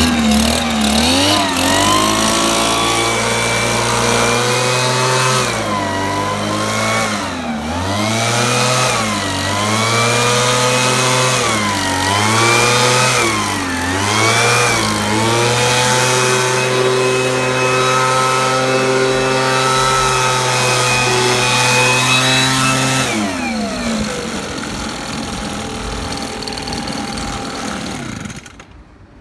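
Hitachi Koki Tanaka THB-2510N handheld engine blower running, its small two-stroke engine revved down and back up several times, then held at high speed blowing air from the nozzle. Its speed falls away about two-thirds of the way through, and the engine cuts off near the end.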